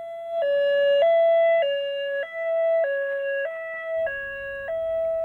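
Ambulance two-tone siren alternating between a lower and a higher note, each held a little over half a second. A low rumble joins about four seconds in.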